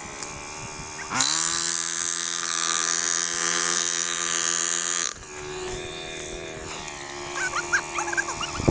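A motor speeds up about a second in, runs steady and loud for about four seconds, then drops back suddenly to a lower, quieter hum. Short high chirps come near the end.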